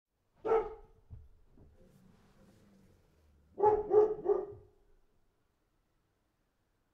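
A dog barking: a single bark, then about three seconds later three quick barks in a row.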